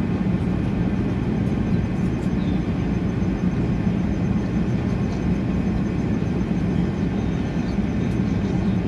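Steady cabin noise inside an Airbus A380 airliner at cruise: a constant rush of airflow and engine noise, heaviest in a low hum, with no change.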